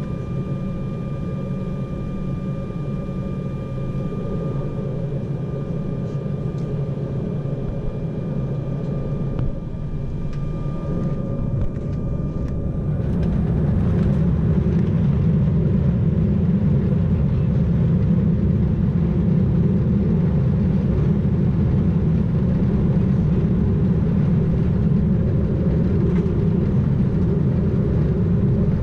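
Inside the cabin of an Embraer E190/195 jet airliner: the engines run with a steady hum and a high whine. About halfway through they spool up to takeoff thrust, and the noise rises to a louder, steady low rumble as the aircraft accelerates down the runway on its takeoff roll.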